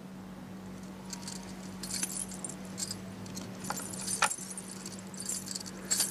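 Light metallic jingling of small metal pieces in short irregular bursts as a woman moves and rises, with two soft knocks about two-thirds through. A steady low hum runs underneath.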